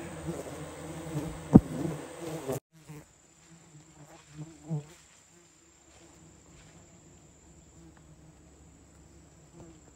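A swarm of giant honey bees buzzing, with one sharp knock about a second and a half in. The sound cuts off abruptly a little before three seconds, leaving a much fainter buzz and a thin steady high tone.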